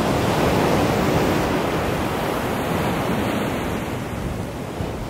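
Ocean surf breaking and washing up a sandy beach, with wind on the microphone; the rush of water is loudest about a second in and then slowly eases.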